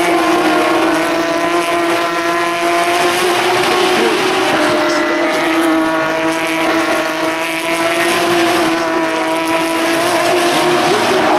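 Several Porsche 911 GT3 Cup race cars' flat-six engines at full song, passing one after another through a corner. A steady, loud engine note with overlapping pitches from the different cars, wavering slightly as each car goes by.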